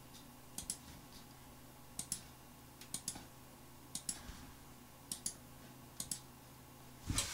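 Computer mouse button clicking, a quick double tick about once a second, as cut regions of a 3D model are selected and removed one after another. A low steady hum runs underneath.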